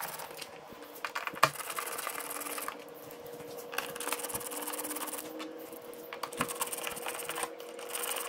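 Hand screwdriver turning out the fairing screws on a Harley-Davidson Road Glide, with rapid fine clicking in three bursts as it turns. A faint steady hum runs underneath.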